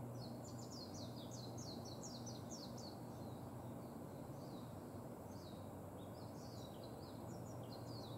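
Japanese white-eye singing: a fast run of high, down-slurred twittering notes, a sparser stretch, then a second rapid burst near the end, over a steady low background hum.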